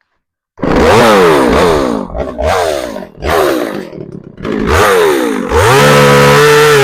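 Shindaiwa 357 two-stroke chainsaw starting in suddenly at high revs, its pitch repeatedly dropping and climbing back as it cuts into a log, then settling near the end to a steadier, lower pitch under load.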